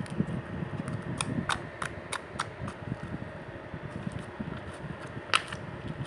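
Plain glue-and-water slime being squeezed and played with by hand, giving a quick run of small popping clicks about a second in and one louder pop near the end, over a steady low background hum.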